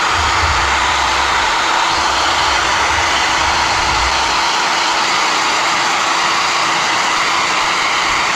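Handheld hair dryer blowing hot air steadily on the edge of fresh window tint film to shrink it in place. There is a low rumble under it for the first half that stops about four and a half seconds in.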